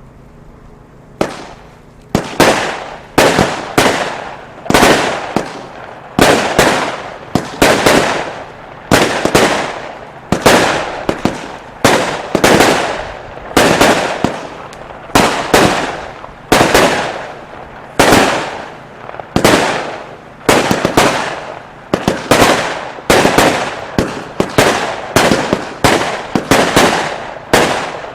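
Weco 'London' firework firing a long, steady series of loud reports, about one and a half a second, each one trailing off before the next.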